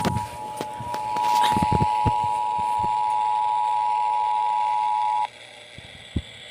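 Emergency Alert System attention signal, the steady two-tone alarm of 853 and 960 Hz that announces an alert, here a Child Abduction Emergency (Amber Alert). It gets louder about a second in and cuts off suddenly a little past five seconds, with a few low knocks under it and a single thump a second after it stops.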